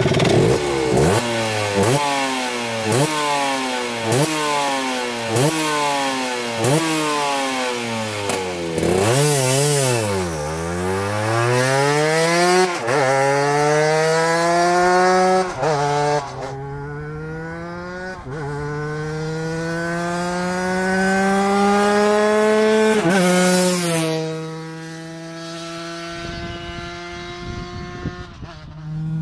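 Cagiva Mito 125's single-cylinder two-stroke engine revved in about a dozen quick throttle blips. It then pulls away and accelerates through the gears, the pitch climbing in each gear and dropping at each upshift, and grows fainter after about 24 seconds as the bike moves off.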